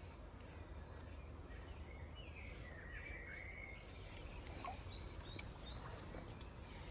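Faint steady outdoor background noise with a small bird calling: a sliding call about two seconds in, then three short high chirps about five seconds in.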